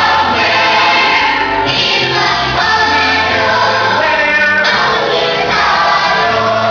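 Young cast chorus singing a musical-theatre number with instrumental accompaniment, a bass line moving in held notes underneath.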